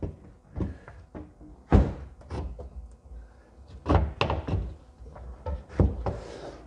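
Wooden floor template knocking and thudding against the fibreglass hull and tank frame as it is pushed and settled into place: a series of dull knocks, the loudest about two seconds in and another cluster around four seconds in.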